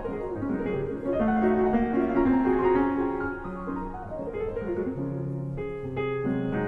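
Background music led by piano, with lower sustained notes under a moving melody.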